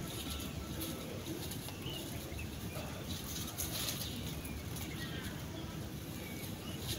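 Outdoor ambience: a steady background hiss with a few short, faint bird chirps.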